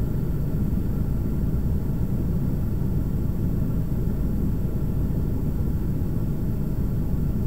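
Steady low rumble of wind noise on the microphone, with faint, unchanging tones above it.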